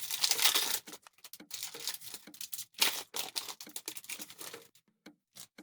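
Foil Pokémon booster pack wrapper being torn open and crinkled, a dense rustle for about a second, then scattered crackles and clicks as the cards are handled.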